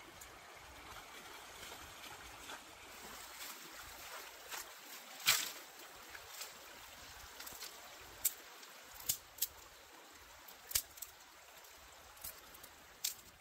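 Dry sticks knocking and cracking against each other as a bundle of firewood is set down and sorted: sharp clicks, the loudest about five seconds in, then several more at intervals. Under them, the steady trickle of a shallow stream.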